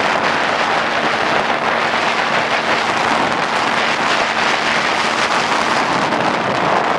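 Inflatable boat running under way: water rushing and spraying along the hull and wind buffeting the microphone in a steady, loud wash, with the faint steady hum of its Yamaha 9.9 two-stroke outboard underneath.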